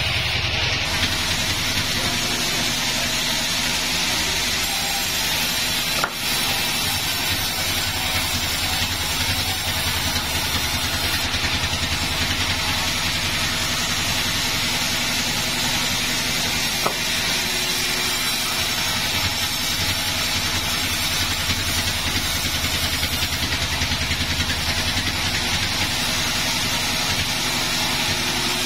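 Sawmill engine running steadily with an even low pulse. There is a sharp knock about six seconds in and a lighter click later on.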